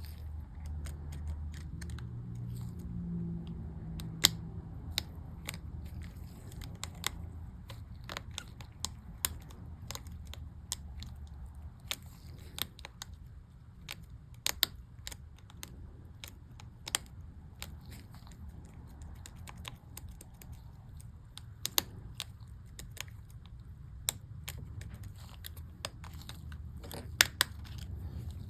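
Small sharp plastic clicks and taps at irregular intervals, a handful of them much louder, as MacBook keycaps are pressed and snapped onto their scissor-mechanism clips. A low steady hum runs underneath.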